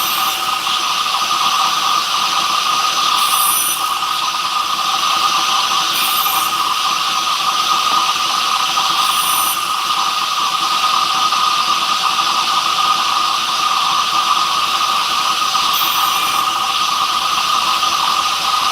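A woodworking power tool running steadily, with short high hissy bursts every few seconds.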